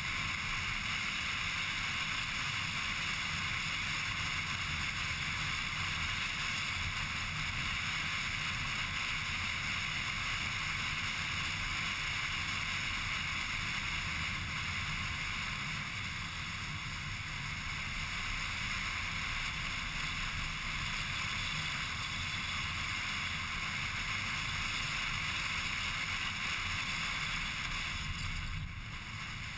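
Steady road, wind and engine noise of a car driving at speed, heard from inside the cabin, easing slightly near the end.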